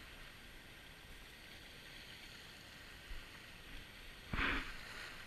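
Shallow lake water washing and sloshing around feet wading along a gravel shore, with a louder splash about four seconds in.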